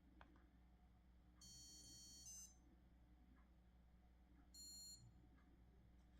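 Two faint electronic beeps over a low hum. The first lasts about a second and steps to a different pitch just before it ends; the second, about three seconds in, is shorter.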